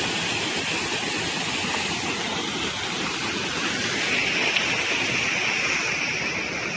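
Steady rush of fast-flowing water, an even unbroken noise with no distinct splashes or events.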